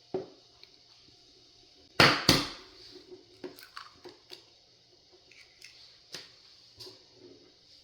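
An egg knocked twice against a hard edge to crack its shell, two sharp knocks close together, followed by small clicks and crackles as the shell is handled and pulled apart.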